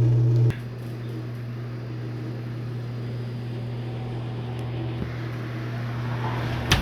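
Freezer machinery running with a steady electrical hum, loud at first and then dropping sharply to a quieter hum about half a second in. A single sharp click near the end.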